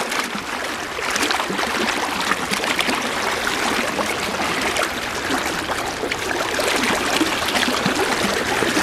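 Fast river water rushing and splashing steadily, the heavy current of a river running high.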